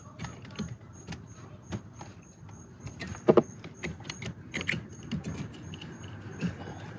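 Plastic wiring-harness connectors being handled and pushed together behind a car's lower dash panel: scattered small clicks and rustles of plastic and wire, with the loudest click about three seconds in.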